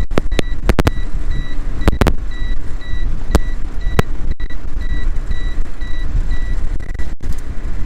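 Volkswagen Mk3's oil pressure warning buzzer beeping about twice a second inside the cabin over steady engine and road noise, stopping about seven seconds in; the owner puts the warning down to a known oil pressure sensor issue. A few sharp clicks.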